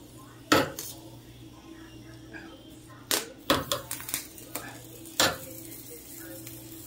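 Metal kitchen tongs knocking and clinking against a gas stove's iron grate while a bell pepper is turned over the burner flame. About nine sharp knocks: one loud one about half a second in and a quick run of them around the middle, over a steady low hum.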